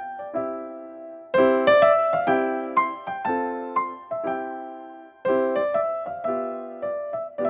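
Background music: a gentle keyboard melody of struck notes, each decaying, played in short phrases.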